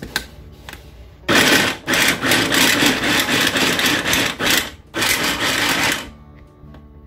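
Small electric food processor run in three short pulses, chopping bell peppers, cilantro and garlic into a coarse mix.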